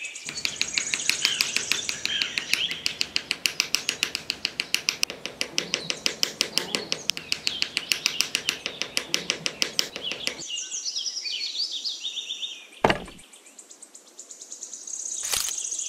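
Small hammer tapping miniature wooden posts into sand: a rapid, even run of light taps, about five a second, that stops after about ten seconds. Two single knocks follow near the end, with birds chirping throughout.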